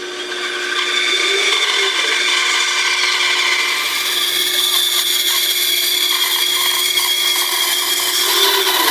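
Bandsaw cutting through a thick block of wood: the motor's steady hum under the blade's cutting noise, which gets louder about a second in as the blade bites into the block.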